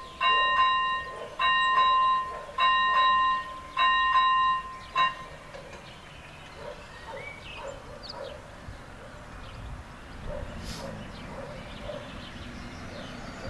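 First-generation electric warning bell of a railway level crossing ringing in repeated strokes about a second apart, signalling that the barriers are coming down for a train. It is a harsh, terrible-sounding ring, and it stops about five seconds in.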